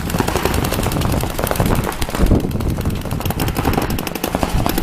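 Rapid, dense popping in quick overlapping strings, like gunfire from several guns at once.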